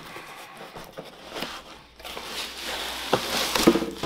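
Hands opening a cardboard mailing box: the flaps scrape and rustle, with a few light knocks. In the second half there is a louder rustle of plastic bubble wrap as a wrapped package is pulled out.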